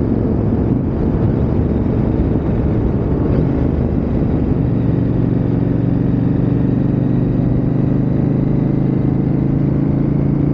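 KTM 890 Adventure R's parallel-twin engine running as the bike rides along, mixed with wind noise. For the first few seconds the sound is mostly rough rushing noise; from about four and a half seconds in, a steady engine hum at constant pitch comes through.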